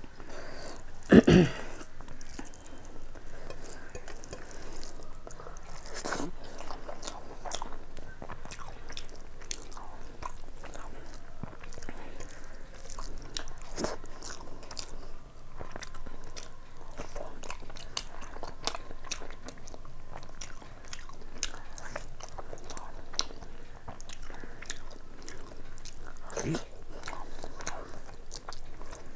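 Close-up mouth sounds of a person chewing fried rice and chicken curry eaten by hand: many small wet clicks and crunches, with one low thump about a second in.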